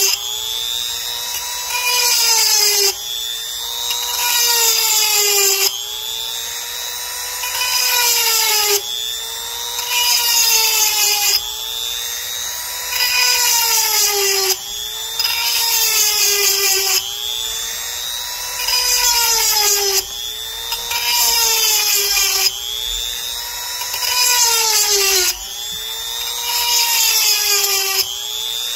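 Handheld electric rotary grinder with a 7/32-inch stone sharpening a chainsaw chain's cutters one after another: a high whine that sags in pitch and gets louder as the stone is pressed into each cutter, then recovers, about every three seconds.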